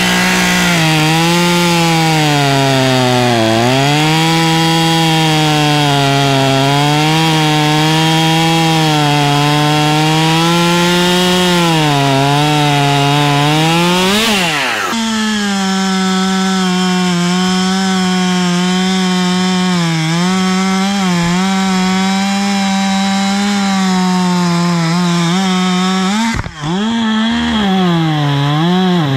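Husqvarna T540 XP Mark III, a 40cc two-stroke top-handle chainsaw, running near full throttle while cutting beech. Its pitch sags and recovers again and again as the chain loads up in the cut. There is a sudden break about halfway through and a brief drop near the end.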